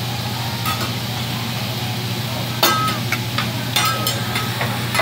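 A hibachi chef's metal spatula clinking on the steel griddle several times, each clink ringing briefly, the loudest about halfway through, over a steady low hum.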